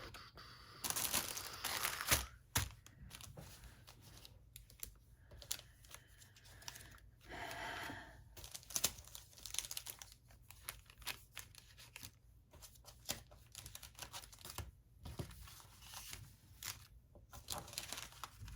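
Plastic packaging crinkling and rustling as unboxed craft supplies are handled, with irregular crackles and small clicks and a louder burst of crinkling about a second in.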